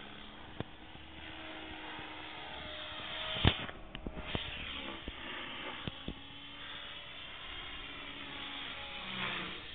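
Electric Align T-Rex 450 Pro RC helicopter flying fast, its rotor and motor whine faint and gliding up and down in pitch as it passes, over a steady hiss. A sharp knock about three and a half seconds in, then a few lighter clicks.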